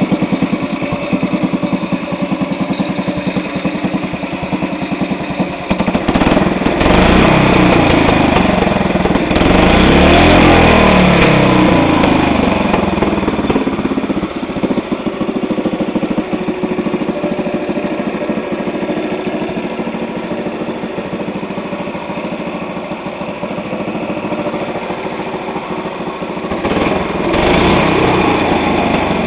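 Honda GX160 single-cylinder four-stroke engine, fitted with a reground cam, a ported and polished head and a homemade header and muffler, running and being revved. It revs up briefly about six seconds in and hardest around ten seconds in, drops back to a lower, steady run, and revs again near the end.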